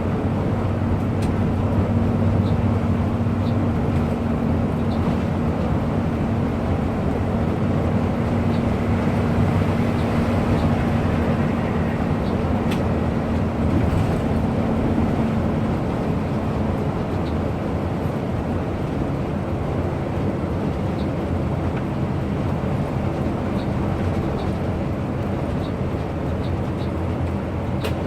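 Intercity bus on the move: steady engine hum over road and wind noise. The engine's hum holds one note for the first half, then fades into the road noise.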